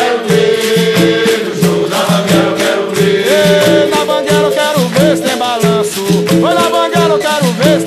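Capoeira music: berimbaus struck in a steady repeating rhythm with caxixi rattles shaking along, and voices singing over them.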